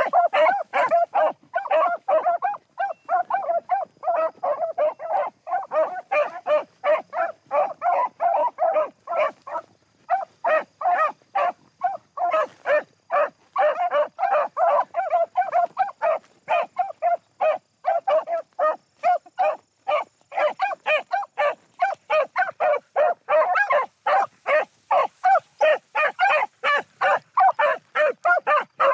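Several beagles baying in full cry, their barks coming several a second and overlapping almost without pause, with one brief lull about ten seconds in: the hounds giving tongue as they run a rabbit's track.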